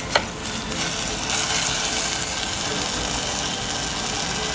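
Orange peel and sugar sizzling in a hot pan, a steady hiss, with a single tap of a utensil on the pan near the start.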